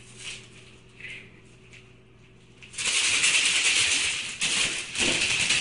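A cat's paws tapping faintly on a desk, then, about three seconds in, loud, continuous rustling and rattling as the cat pushes through papers and other loose items.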